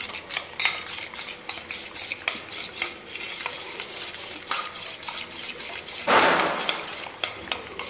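Steel spoon stirring thick dosa batter in a stainless-steel vessel, clinking against the sides in quick repeated strokes, with a longer scrape about six seconds in. The batter is being mixed with gram flour until no lumps remain.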